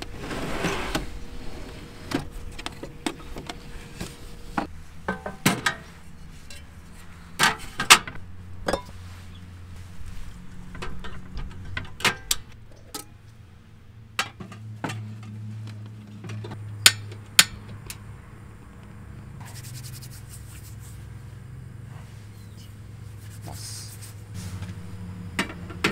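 Scattered clicks, knocks and rattles of objects being handled, over a low steady hum that grows stronger about halfway through.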